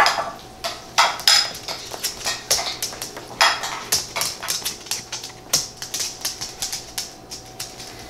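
Tortilla chips being crunched, a run of irregular sharp crunches and clicks, some much louder than others.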